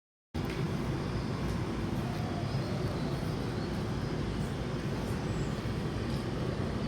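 Steady ambient background noise, heaviest in the low range, with a few faint ticks and no distinct source standing out.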